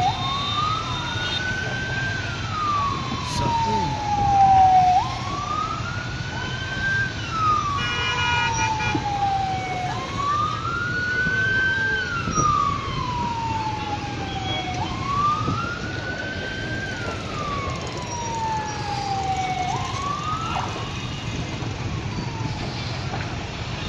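Emergency siren wailing slowly: each cycle rises for about two seconds and falls for about three, repeating four times. It breaks off early in a fifth rise about twenty seconds in. A steady low rumble runs underneath.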